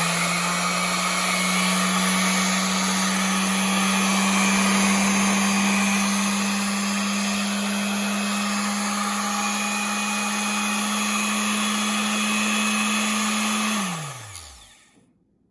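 WEN corded electric detail sander running steadily at full speed with a strong motor hum. Near the end it is switched off, and the hum falls away as it spins down to a stop.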